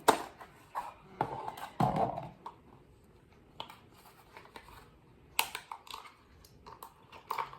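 Irregular clicks and knocks of plastic solar garden lights being handled, about half a dozen sharper ones spread out with quieter rattles between.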